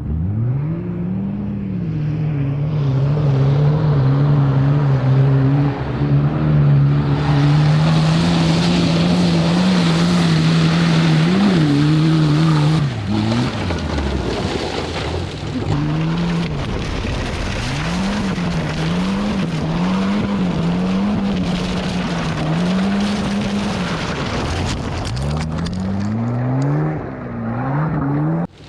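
Turbocharged Volvo 940 engine driven hard on loose ground. Its revs are held high and steady for several seconds under a loud rushing noise, then rise and fall over and over. It drops off briefly near the end and revs up again.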